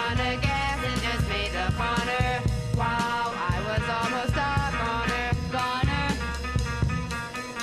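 Instrumental passage of an upbeat band song: drum kit and a bass line under a melodic lead line, with no singing.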